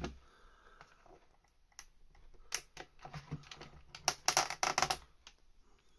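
Small plastic clicks and taps as the speedometer needle is twisted and pulled off a Ford Focus Mk2 instrument cluster. A quick run of louder clicks comes about four to five seconds in.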